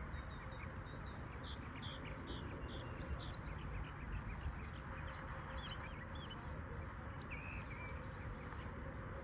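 Birds chirping and calling in short, scattered notes over a steady outdoor background hiss.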